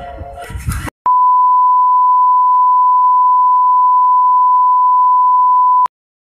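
Steady 1 kHz test-pattern tone, the single pure beep that goes with TV colour bars. It starts about a second in, holds for about five seconds and cuts off suddenly.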